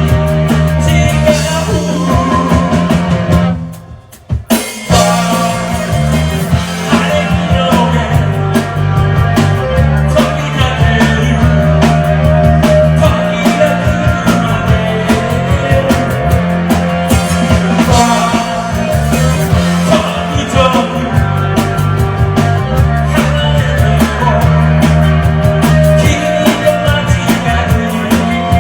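Rock band playing loud, with drum kit and guitar; the band stops dead for about a second, a little under four seconds in, then crashes back in together.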